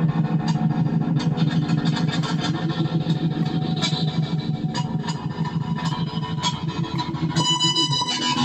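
Distorted electric guitar on an offset-body guitar, picked fast and evenly on low strings. Near the end the low notes break off for a moment while a high note rings, then the picking starts again.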